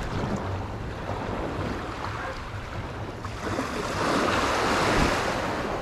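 Sea surf washing onto a beach, with one wave swelling louder in the second half before easing off. Wind buffets the microphone throughout.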